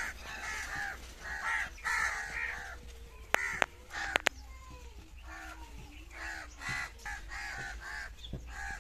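A flock of crows cawing over and over, with a few sharp clicks a little past the middle.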